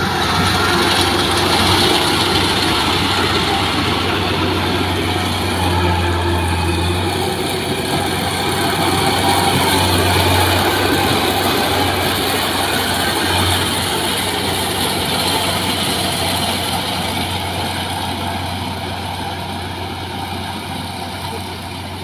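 Kubota PRO588 combine harvester running while it cuts and threshes rice, a steady mechanical drone of its diesel engine and threshing machinery. The sound gradually fades over the last several seconds as the harvester moves away.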